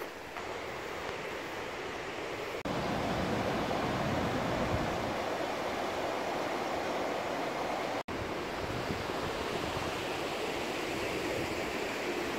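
Steady rushing of a river over rocky rapids, louder from about three seconds in, with a momentary break around eight seconds.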